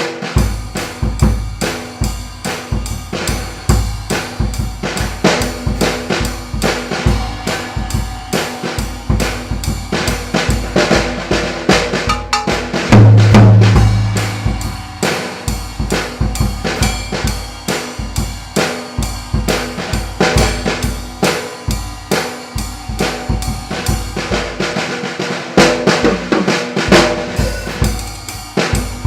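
Full drum kit played in a steady groove: maple-shell bass drum, snare and toms under the wash of an 18-inch Zildjian Pang cymbal. One loud low drum hit rings out about halfway through.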